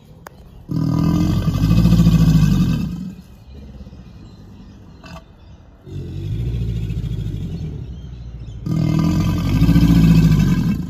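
Alligator bellowing: three long, deep, rough bellows of two to three seconds each, the middle one quieter.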